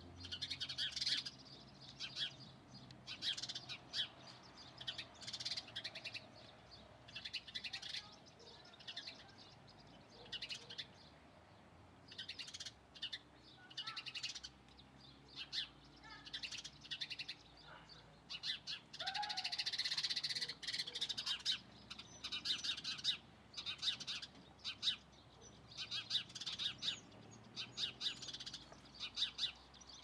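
Small songbirds chirping: bouts of short, high chirps repeated again and again, busiest about two-thirds of the way through.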